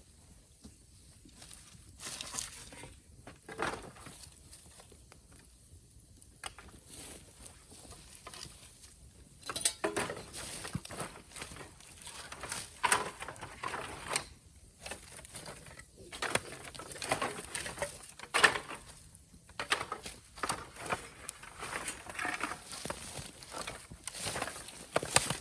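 Irregular crackles, snaps and rustling of burning bamboo and brush being worked at a night bonfire.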